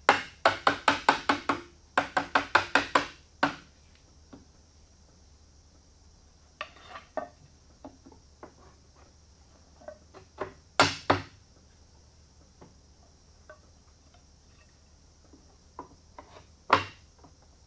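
A mallet tapping oak shelf pieces down into a wooden display case frame: two quick runs of about six or seven taps each in the first three seconds, then scattered lighter knocks of wood on wood, a pair of blows about eleven seconds in, and one more near the end.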